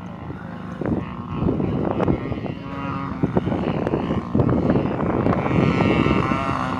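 Radio-controlled model Spitfire flying a pass, its engine and propeller droning and growing louder as it approaches.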